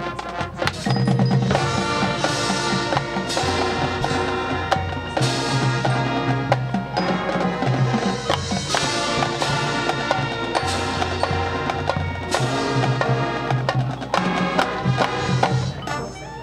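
Marching band playing on the field: sustained brass chords over drumline and front-ensemble percussion, with sharp drum and mallet strikes throughout. The full band comes in loudly about a second in and drops back near the end.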